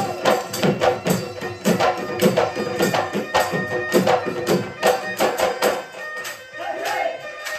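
Instrumental Assamese Bihu folk music: fast, regular drumming under a held wind-instrument melody. About six seconds in the drumming drops away, leaving a softer wavering melody.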